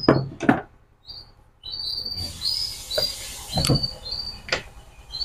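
Knocks and handling noise as a hand-held marble cutter, not running, is moved and turned over on a wooden plank bench: a few sharp knocks, with light rustling in between. Short high bird chirps repeat throughout.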